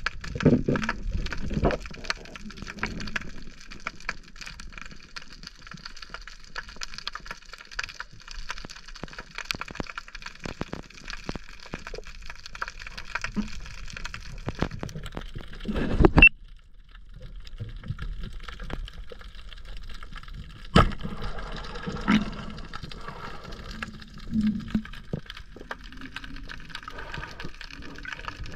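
Underwater action-camera audio during a spearfishing freedive: a continuous crackle of small clicks and water noise, broken by a few sharp knocks about halfway through.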